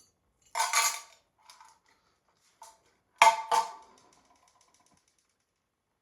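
Metal clanks: a short rattle about half a second in, a few light knocks, then two sharp metallic clanks a third of a second apart, the second ringing on briefly as it fades.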